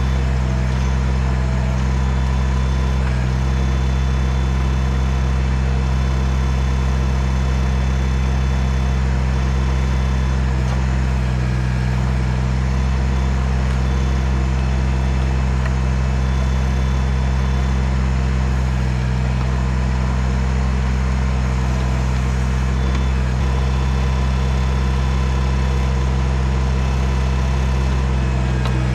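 Kubota BX compact tractor's three-cylinder diesel engine running steadily at a constant speed.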